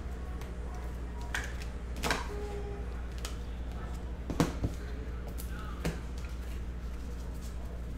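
Trading cards being handled: a handful of sharp, scattered clicks and taps as cards are flicked through and set down on the table, over a steady low electrical hum.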